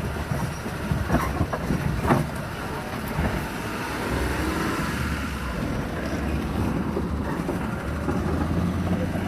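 Car driving across a bridge: steady low engine and road rumble, with a few faint knocks in the first couple of seconds.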